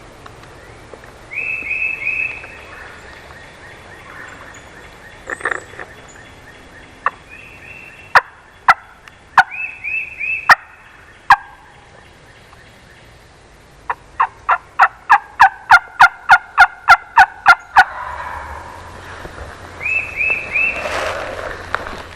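Wild turkey calling: several short runs of high yelps, and in the second half a long run of loud, sharp, evenly spaced notes at about four a second, tagged as gobbling.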